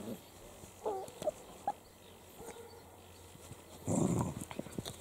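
Italian greyhound puppies play-fighting: a few short, high yelps about a second in, then a louder rough growl near four seconds.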